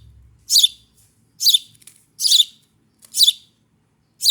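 Hand-raised baby bird chirping: short, sharp, high-pitched calls repeated evenly about once a second.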